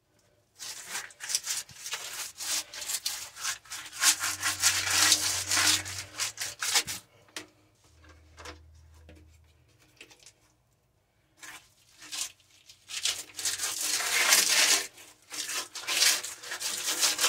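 A wide brush scrubbing wall putty (massa corrida) onto a wall, in quick, scratchy back-and-forth strokes. The strokes come in two long runs, dropping away for a few seconds just past the middle.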